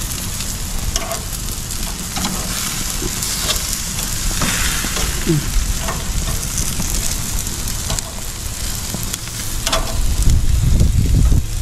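Duck heads sizzling on a barbecue grill grate while steel tongs turn them, with a light click of metal on metal every second or two. A low rumble comes in near the end.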